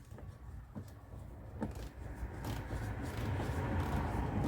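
Hand work with a small ratchet and tools: a few faint clicks early, then a rustling, scraping handling noise that grows louder through the second half.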